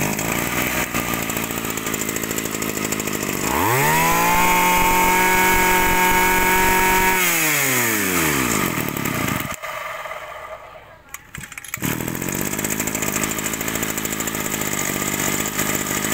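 G2KC (Zenoah Komatsu) two-stroke brush cutter engine, just pull-started, running at idle. About three seconds in it revs up to a high steady note, holds for a few seconds, then falls back. It nearly cuts out for about two seconds, runs again, and winds down at the very end.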